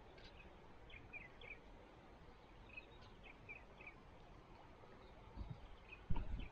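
Small birds chirping in short calls, in little groups every second or so, over a steady background hiss. Near the end come two low thumps, the second the loudest.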